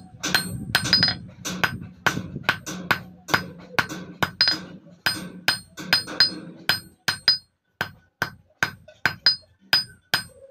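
Hand hammer striking a thin steel sickle blade on a steel block anvil, worked cold without heating: about two to three sharp blows a second, each with a short high metallic ring.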